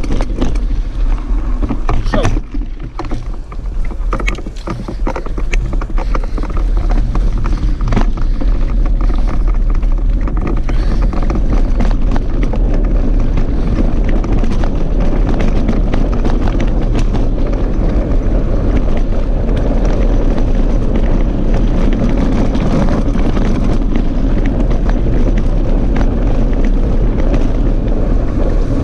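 Mountain bike riding along a rough dirt track, heard from a camera on the rider or bike: a steady rumble of wind on the microphone, with frequent clicks and rattles from the bike over bumpy ground through the first half.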